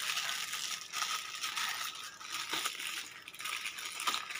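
Thin plastic wrapper crinkling and rustling as a wristwatch is pulled out of its bag.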